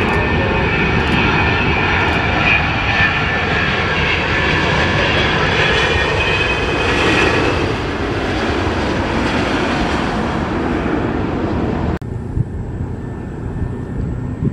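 Jet airliner engines running loud and close, a dense rush with a steady high whine over it. The sound cuts off abruptly about twelve seconds in, leaving a quieter, even background noise.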